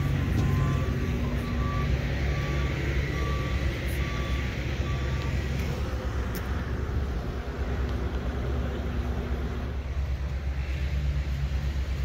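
A construction vehicle's reversing alarm beeping over and over, stopping about five seconds in, over the steady low rumble of an engine.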